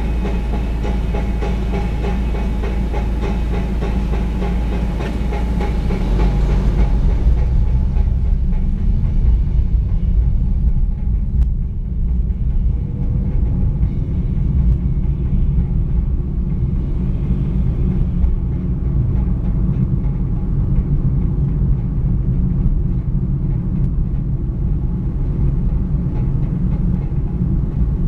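Car engine and road noise heard from inside the cabin. The car idles in traffic, and about six seconds in it pulls away, leaving a steady low rumble of engine and tyres as it drives on.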